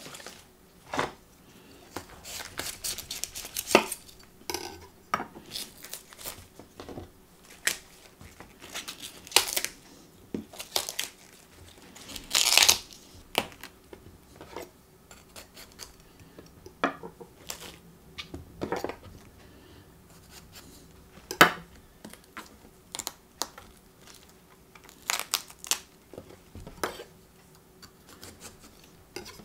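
Raw cauliflower being trimmed by hand on a wooden cutting board: the leaves are snapped and torn from the stem, then a knife cuts the florets free. It is a series of crisp snaps, knocks and short rustling tears with pauses between them. The longest tear comes just before the middle, and a sharp crack falls about two thirds of the way in.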